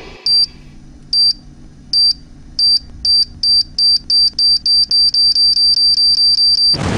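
Bomb-timer countdown sound effect: about twenty short, high electronic beeps that come faster and faster, from about a second apart to about four a second. The beeps end in an explosion that begins just before the end.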